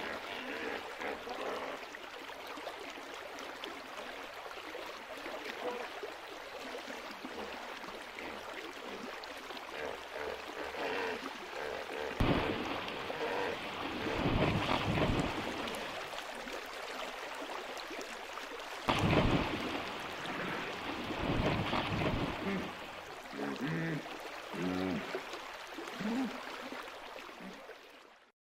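Hippos splashing and churning through river water, with two big splashes about 12 and 19 seconds in. A few short pitched calls come near the end.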